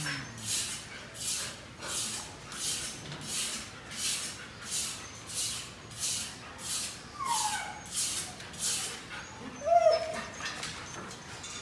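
Siberian husky puppies whining: a falling whimper about seven seconds in, then a short, sharp yip near ten seconds. Under them, a soft hiss repeats about three times every two seconds.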